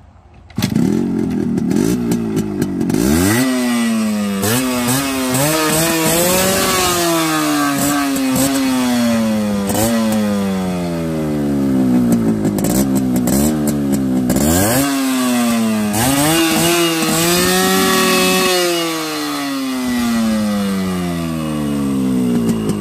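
Yamaha RX100's two-stroke single-cylinder engine being revved hard three times, each time climbing in pitch and then slowly falling back.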